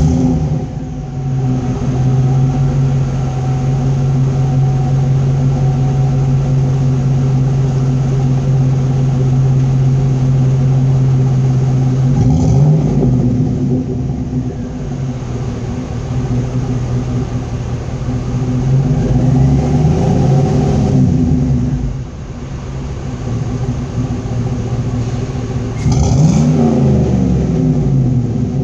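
2003 Chevrolet Avalanche Z71's V8 running through a new MBRP cat-back exhaust just after starting. It idles steadily, then is briefly revved and let fall back: once about twelve seconds in, a couple of times around twenty seconds, and once more near the end.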